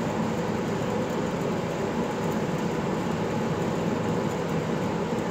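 Steady low rumble of background room noise, even throughout with no distinct events.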